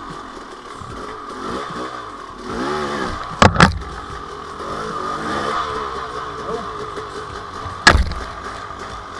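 KTM 300 XC-W two-stroke dirt bike engine running at low revs with short throttle blips. Two sharp knocks stand out, about three and a half seconds in and again near the end.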